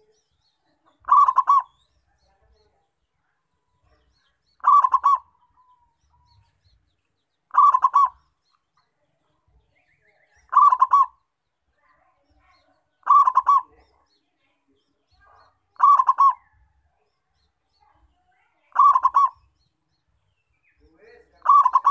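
A local zebra dove (perkutut) singing its cooing song, about eight times. Each song is a short, quick run of notes about half a second long, with a pause of about three seconds between songs.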